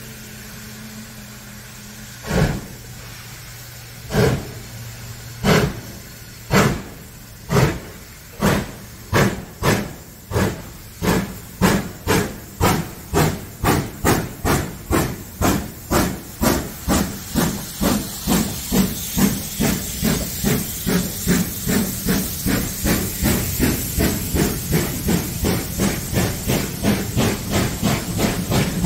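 Ivatt Class 2MT 2-6-0 steam locomotive starting a train. Its exhaust beats come slow and widely spaced from about two seconds in and quicken steadily to about three a second as it gathers speed. Steam hisses throughout, with white steam venting low near the cylinders.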